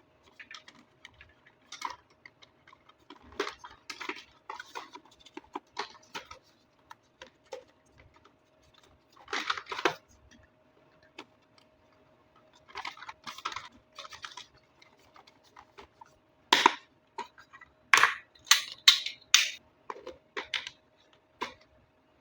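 Scattered clicks, taps and rustling from handling plastic RC toy vehicles and their packaging, with a run of sharper, louder clicks in the last few seconds. A faint steady hum runs underneath.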